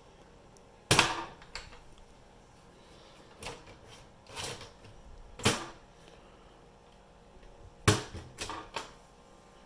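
Hard plastic-and-metal clicks and clunks as a server's PCI riser card is unlatched with its blue latch handle and lifted out of the chassis. Sharp knocks come about a second in and near the end, these two the loudest, with softer clicks between.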